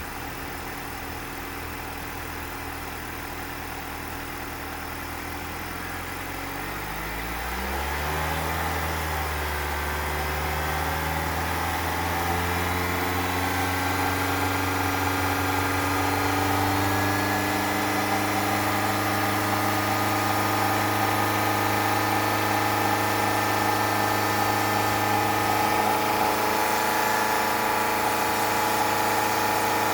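Honda ZR-V engine, held running in maintenance mode, idling and then revved up after about six seconds to a higher steady speed, stepping up once more and holding. A faint abnormal noise that the owner is chasing is mostly masked by the engine.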